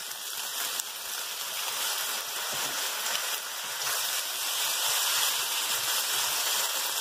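Fresh rice noodles sizzling in an oiled wok over medium-high heat as they are stir-fried with chopsticks in dark soy sauce: a steady hiss that grows a little louder.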